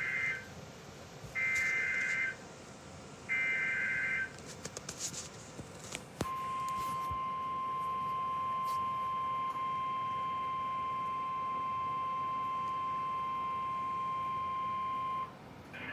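Emergency Alert System activation: three short buzzy SAME header data bursts about two seconds apart, a few crackles of static, then the steady single-pitch NOAA Weather Radio warning alarm tone held for about nine seconds before it cuts off.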